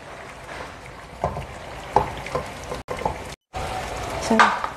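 Seblak broth simmering and sizzling in a frying pan, with a few light knocks. It cuts out briefly near the end.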